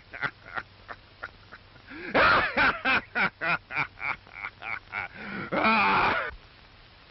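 Laughing, a long run of short 'ha' pulses about five a second. It swells into louder, longer bursts about two seconds in and again near the end, then breaks off.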